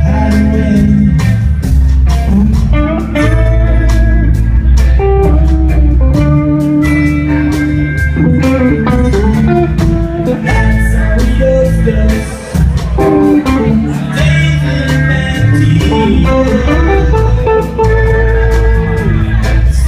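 A live band playing loud music, led by guitar over a heavy bass, with sharp percussive hits throughout.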